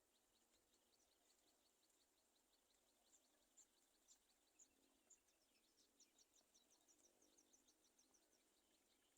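Faint, rapid series of high bird chirps, about five or six a second, getting louder and higher-pitched in the second half.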